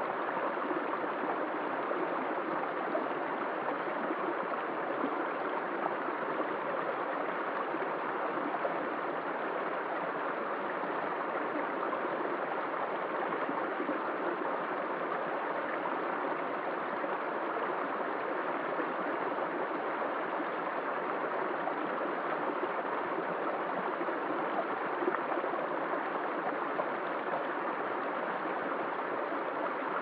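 Shallow rocky stream running over stones and small cascades, a steady, unbroken babble of water.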